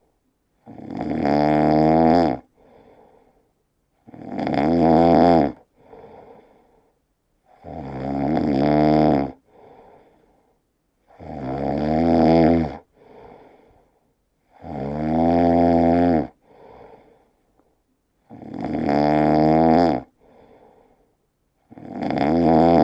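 A person snoring loudly in deep sleep, in a steady rhythm: seven snores on the in-breath, about one every three and a half seconds, each swelling over about a second and a half, and each followed by a short, much quieter out-breath.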